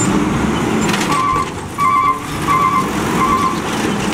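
Natural-gas automated side-loader garbage truck running as its hydraulic arm lifts a wheeled cart, while a warning beeper sounds four short beeps, about one every 0.7 seconds.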